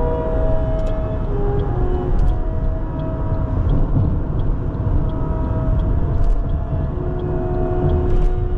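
Car driving with a steady low road rumble, mixed with music of long held notes that change pitch every second or so.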